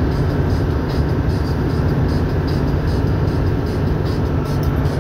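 Toyota Coaster minibus engine running steadily on the move: a continuous low drone with road noise.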